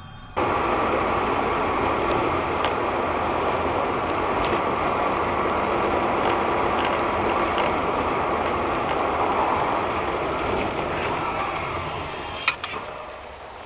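Steady vehicle driving noise, a loud even rush of engine and road sound that starts abruptly and fades toward the end, with scattered light clicks and one sharp knock near the end.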